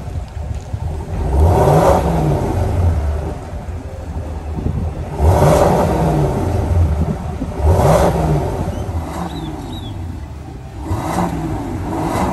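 GMC Yukon Denali engine revved through a custom performance exhaust with dual-tip outlets, about five short revs that rise and fall back to idle between them.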